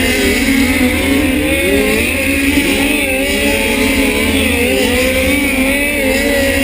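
Several USAC midget race cars running hot laps together, their engines droning at shifting pitches that rise and fall against one another.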